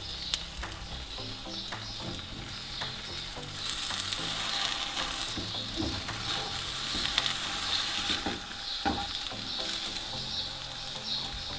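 Zucchini-and-egg batter sizzling in olive oil in a non-stick frying pan, a steady hiss, with a few light knocks of a wooden spatula as the omelette is rolled up.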